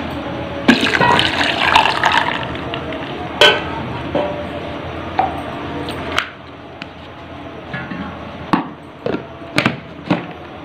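Milk pouring steadily into a plastic blender jar over ice cubes, with a couple of sharp knocks, stopping about six seconds in. Then several sharp plastic clicks as the lid is fitted onto the jar.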